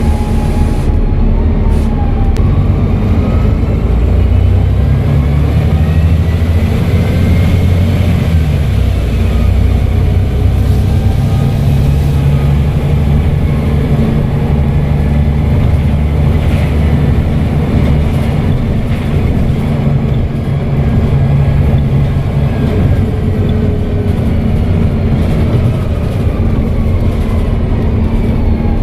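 Volvo B7TL bus's six-cylinder diesel engine running under load, with a turbo whistle that rises and falls in pitch over the engine drone twice as the bus speeds up and eases off.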